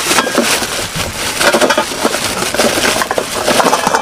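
Clear plastic bag crinkling and rustling as it is opened and a container is pulled out of it, a dense run of crackles.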